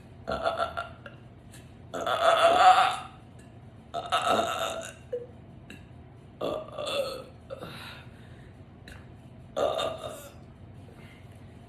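A woman burping loudly, about five burps a couple of seconds apart, the second, about two seconds in, the longest and loudest.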